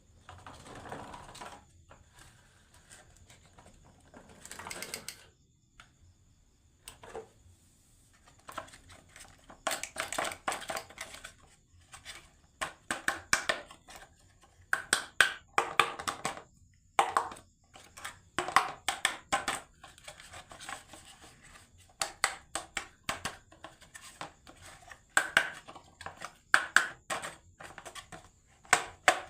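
Marbles rolling and clacking down a wooden marble run. It starts with a few soft rolling swells, then turns into quick clicks and knocks that come thick and fast through the second half.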